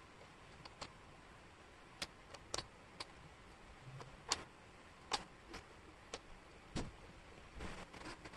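Thin wooden jigsaw puzzle pieces clicking and tapping on a tabletop as they are picked up and set down, about nine sharp ticks spaced irregularly. Near the end there is a brief shuffle of pieces being slid across the table.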